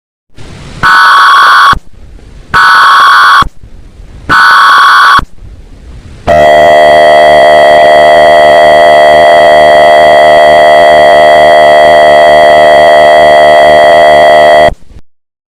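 Mock Emergency Alert System alert tones, very loud: three short data bursts of under a second each, then a long steady attention tone lasting about eight seconds that cuts off abruptly.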